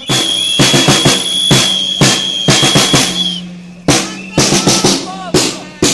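Drums beaten in a steady march beat, about two strokes a second, with a long held whistle blast over the first three seconds.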